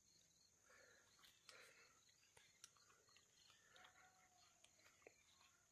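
Near silence: faint outdoor ambience with a steady high hiss and a few faint chirps and clicks scattered through it.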